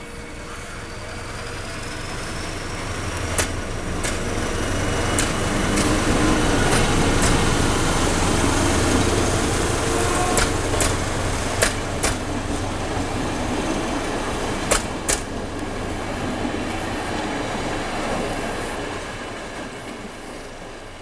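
SU42 diesel locomotive hauling a train of double-deck passenger coaches as it departs and passes. The engine drone builds, peaks as the locomotive goes by, then fades as the train moves away. Sharp wheel clacks over rail joints and points come through about a dozen times while the coaches pass.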